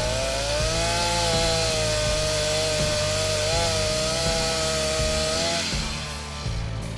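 Two-stroke chainsaw running at high revs and cutting through wood, a steady whine that wavers slightly. It drops off near the end.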